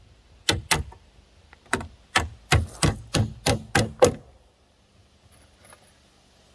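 Framing hammer driving nails through a galvanized steel joist hanger into a wooden joist: about ten sharp blows, some in quick pairs, over the first four seconds, then it stops.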